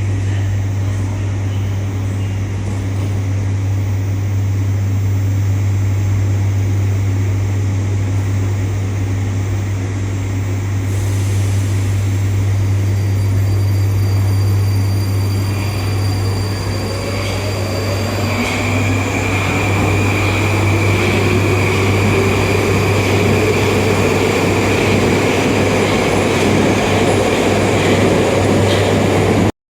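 Metro train at a station: a steady low hum, then just past halfway a motor whine that climbs steadily in pitch as the train pulls away and picks up speed. It cuts off abruptly near the end.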